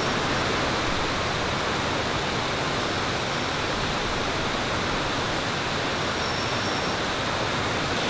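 Steady, even rush of flowing water from a stream and waterfall.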